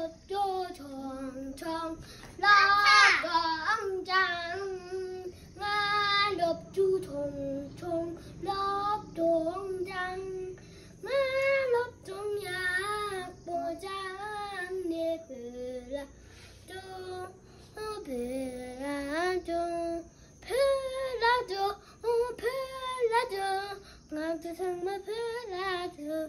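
A young boy singing a song in short phrases with brief pauses between them.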